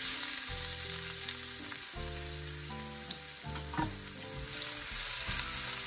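Diced white onions frying in hot oil in a wok, sizzling steadily.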